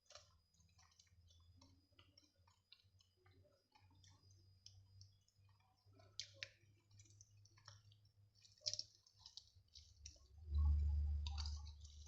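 Close-up eating sounds: many small, irregular mouth and chewing clicks. A louder low rumble comes in about ten and a half seconds in.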